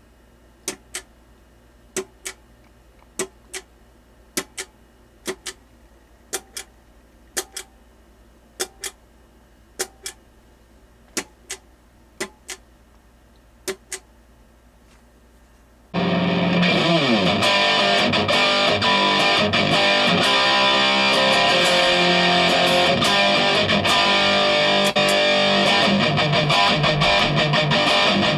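Momentary push-button foot switch clicking, a click down and a click up for each press, about once a second for some fifteen seconds. About 16 s in, a loud distorted electric guitar starts playing through the Avid Eleven Rack.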